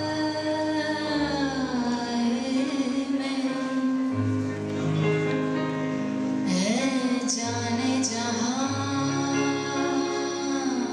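A song with a sung lead vocal holding long, gliding notes over bass and instrumental accompaniment.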